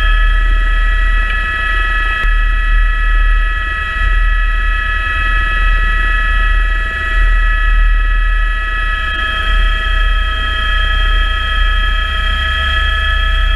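Rescue helicopter running steadily: a constant turbine and gearbox whine made of several fixed tones over a heavy, fluttering low rotor rumble.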